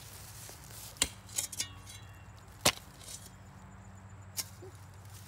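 Shovel chopping into a tree root in the ground: a few separate sharp strikes, the loudest about two and a half seconds in.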